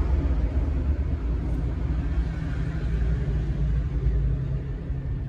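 Steady low rumble with a hiss over it, starting and stopping abruptly.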